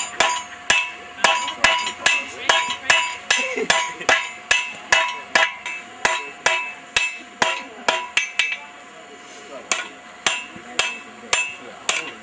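A lead blacksmith's hammer and two strikers' sledgehammers beating hot steel on an anvil in quick alternating blows, about three a second, each blow leaving a bright anvil ring. The blows thin out for a moment about two-thirds of the way through. This is the steel being drawn out to fit the hardy hole.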